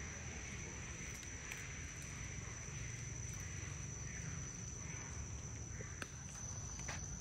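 Forest ambience: a steady, high-pitched insect drone over a low rumble, with a few faint clicks.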